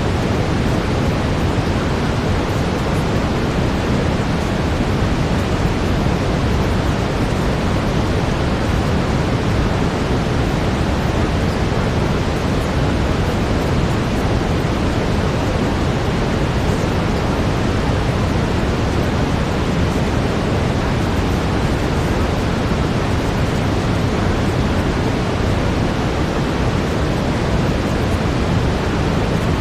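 Steady synthetic brown noise: an even, deep hiss, heaviest in the low end, with no change from start to end.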